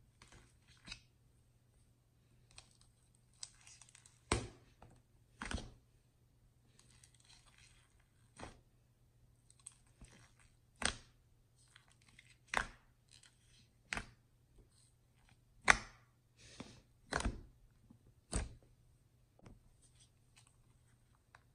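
Fingers squishing and poking a thick dish-soap-and-shampoo slime studded with foam beads in a plastic cup. The slime gives about a dozen sharp, wet pops and clicks at irregular intervals, with faint crackling between them.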